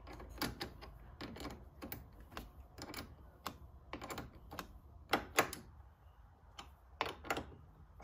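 A 10 mm wrench tightening the bolt on the battery cable's terminal, making a run of irregular sharp metal clicks, with the loudest a little past the middle and near the end.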